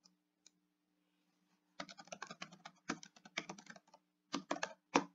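Quiet typing on a computer keyboard: an irregular run of keystrokes starting about two seconds in, as an email address is typed.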